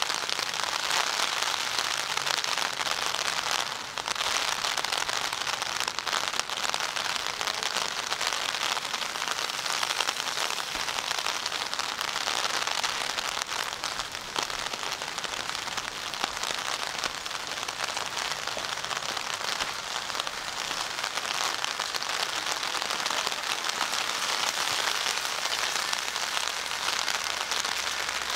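Steady rain falling on wet street pavement, a dense even patter that dips briefly about four seconds in.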